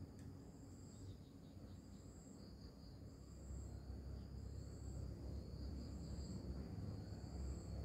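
Insects chirring: a high trill pulsing on and off about every second and a quarter over a steady high buzz, with a low rumble underneath.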